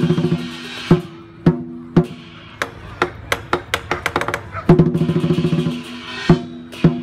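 Chinese lion dance drum beaten with fast rolls at the start and about five seconds in, single heavy strokes between them, with cymbals crashing along.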